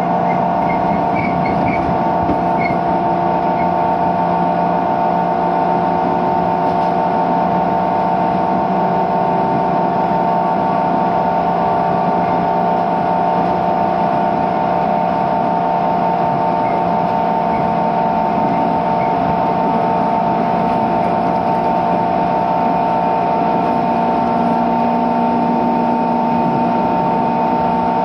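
Motor-generator (MG) of a 205 series 600 subseries electric train whining steadily, a set of loud steady tones over the train's running noise. It is the abnormal MG noise this car is known for. A lower tone joins near the end.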